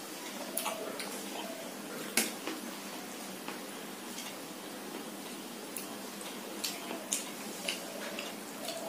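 Fingers mixing rice and a soft vegetable paste on a stainless steel plate while eating by hand, with scattered small clicks and taps against the plate and soft wet squishing. The sharpest tap comes about two seconds in.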